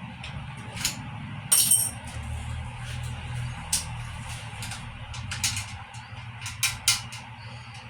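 Scattered metallic clinks and rattles of tools and bicycle parts being handled, with a jingling rattle about one and a half seconds in and a quick cluster of clinks near the end, over a steady low hum.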